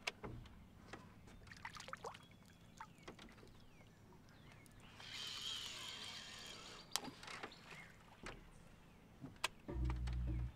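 Fishing rods and reels being handled on a boat deck: scattered small clicks and knocks, a hiss of about two seconds around the middle, and a short low rumble near the end as a rod goes into its holder.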